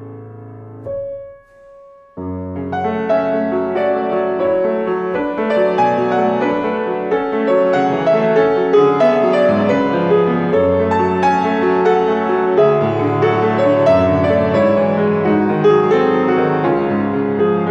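Solo grand piano: a held chord dies away into a brief near-pause with a single soft note, then a fuller, busier passage begins about two seconds in and carries on.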